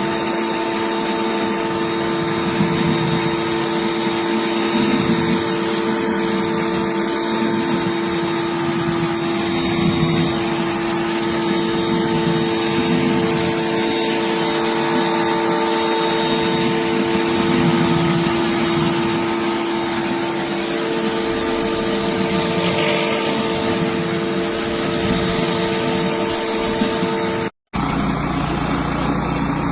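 Pressure washer running steadily, with the hiss of high-pressure water spraying through a surface cleaner. The sound cuts out for an instant near the end and comes back with a slightly different tone.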